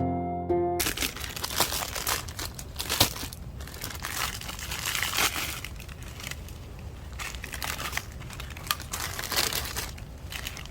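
Plastic packaging crinkling and rustling as it is handled, in irregular crackles. Background music cuts off about a second in.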